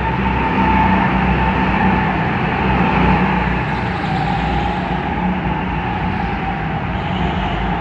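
Go-karts running laps around an indoor track: a steady hum of kart motors with a whine held on one pitch throughout.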